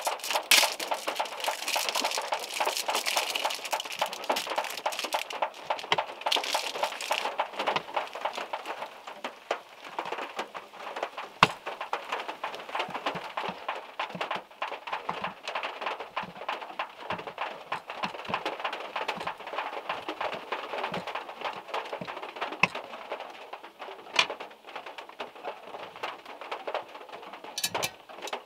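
Rain and drops falling from trees pattering on a small car's roof and body, as a dense ticking over a hiss. Heavier for the first seven seconds or so, then lighter, with a few single heavier drops hitting louder.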